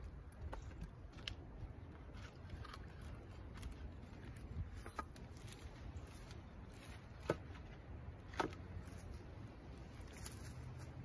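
Split firewood being handled and stacked: a few scattered wooden knocks as pieces clunk against each other and onto the pile, the sharpest about seven and eight seconds in, over a low rumble.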